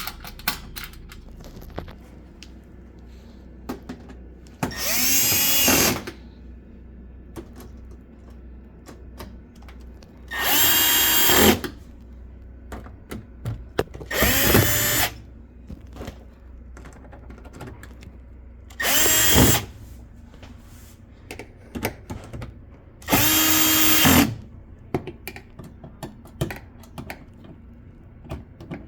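Power drill-driver run in five short bursts, each about a second long, its motor whine rising in pitch as it spins up. Small clicks and handling knocks come between the bursts.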